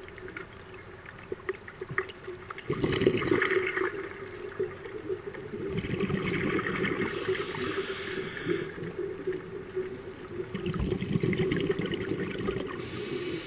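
Scuba diver's regulator breathing heard underwater: rushes of exhaled bubbles a few seconds apart, about three seconds in, from about six to eight and a half seconds, and again near the end, over a steady low hum.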